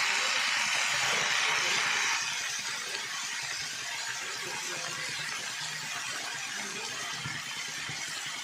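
Vegetables for a bhaji sizzling in a pan as a steady hiss, which drops a little in loudness about two seconds in.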